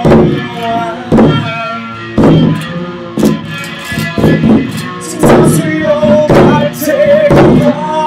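Live music: electric guitar with a drum beating about once a second. About five seconds in, a voice joins, holding long wavering notes without words.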